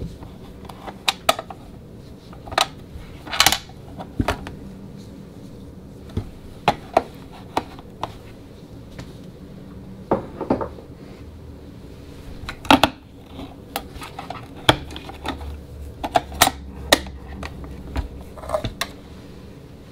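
Irregular clicks, taps and knocks of hands handling a 1960s battery-operated toy coin bank, opening the battery compartment cover on its underside and turning the toy over. A low steady hum comes in about three-quarters of the way through.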